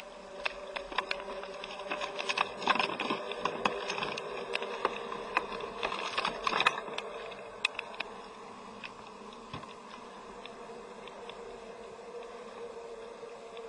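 Water splashing and dripping as a fluke (summer flounder) thrashes in a landing net pulled up out of the water, with sharp clicks and splashes over the first seven seconds or so, then quieter. A steady faint buzzing hum sits underneath.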